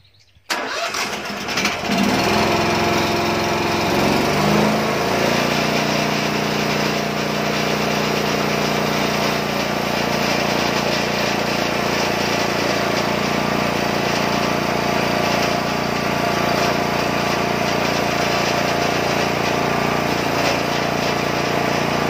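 The homemade band sawmill's engine starts about half a second in, revs up over the next couple of seconds, then runs steadily at a constant speed.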